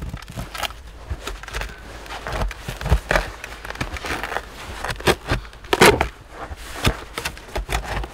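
Steel spade blade scraping and jabbing into dirt along the edge of a buried sheet of metal, prying at it: an irregular run of gritty scrapes and sharp knocks, the loudest about six seconds in.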